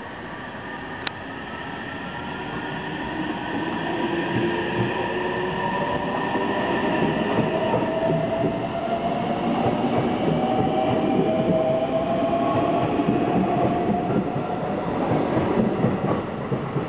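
JR Central 313 series electric train pulling away, its traction motors whining and climbing steadily in pitch as it speeds up and grows louder. Wheels clack over rail joints near the end.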